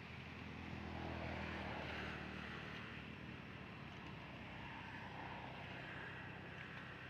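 An engine running steadily, swelling a little about a second in and easing back after about two seconds.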